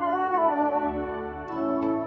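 Instrumental music with sustained brass-like and organ-like tones moving slowly between notes.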